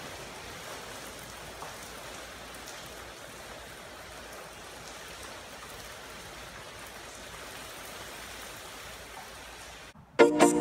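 Fresh motor oil being poured into a Volkswagen Beetle engine's oil filler: a steady, even trickle. It stops near the end, as guitar music comes in.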